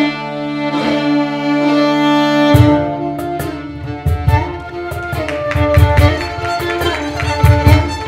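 String ensemble of violins, viola and cello playing an arrangement of Persian traditional music, with held notes over a low drone. About two and a half seconds in, a cajon comes back in with a steady beat of deep thumps and sharp slaps under the strings.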